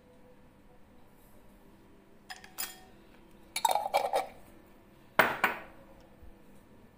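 A spoon clinking against a glass mixing bowl several times, starting about two seconds in, with the loudest knock about five seconds in.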